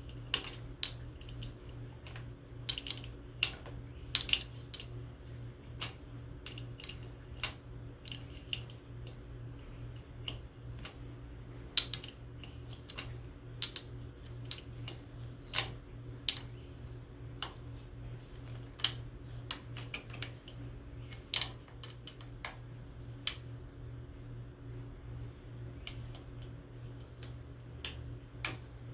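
Hand tools and metal engine parts clicking and clinking irregularly while the ATV engine's top end is reassembled, over a steady low hum.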